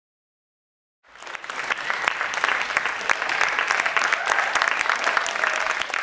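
Dead silence for about a second, then an audience applauding, fading in quickly and going on steadily as many hands clap.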